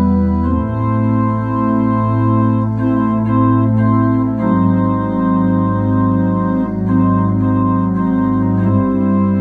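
Keyboard music with an organ-like sound: held chords that change about every four seconds, with a slow pulsing in the lower notes.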